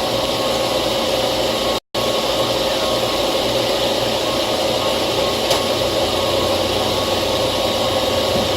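Steady mechanical drone with a constant mid-pitched hum over low hum, broken by a momentary total dropout about two seconds in.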